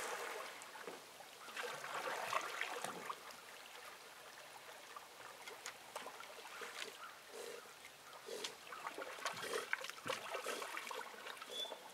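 A dog swimming, with gentle water lapping and trickling around it and the small skiff, and a faint puff of the dog's breathing now and then.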